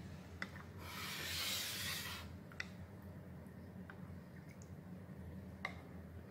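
Metal cutlery clinking against a ceramic soup bowl four times, the last one loudest, with a breathy hiss lasting about a second near the start.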